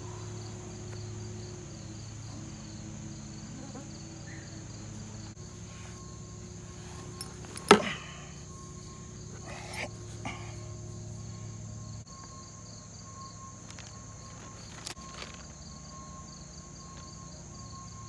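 Insects chirping steadily in a fast, even high-pitched pulse, over a low hum. A sharp click about eight seconds in is the loudest sound, with a few fainter clicks later.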